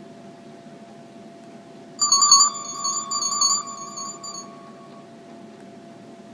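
Built-in alert tone of an Alcatel OT-708 mobile phone played through its small loudspeaker. It starts about two seconds in as a quick run of bright repeated chimes over a held lower note, then dies away by about five seconds.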